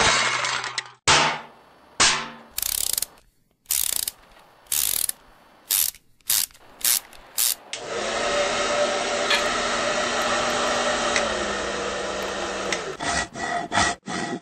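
Hand tools working on a small garden-tractor engine: a string of short ratcheting strokes, then about five seconds of steady mechanical noise with a low hum, then more quick strokes near the end.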